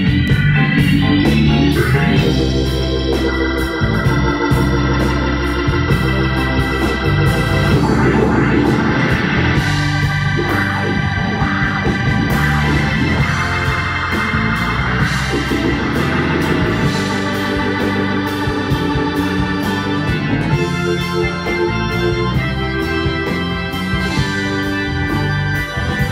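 Live band playing an instrumental passage, the Hammond organ's sustained chords leading over electric bass, electric guitar and drums.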